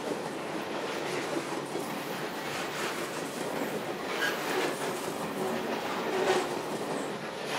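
Loaded coal hopper cars of a freight train rolling past, a steady rumble and clatter of wheels on rail, with a brief wheel squeal about four seconds in.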